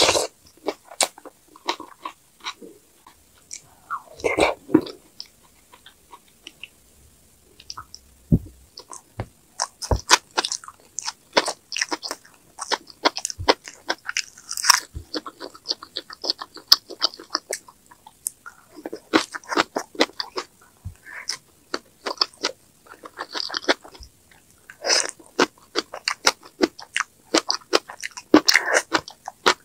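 Close-miked eating sounds: crunchy bites and wet chewing of rice wrapped in seasoned laver and green onion kimchi, the crackles coming in dense clusters.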